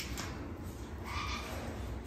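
Parrot giving one faint short squawk about a second in, over a low steady hum.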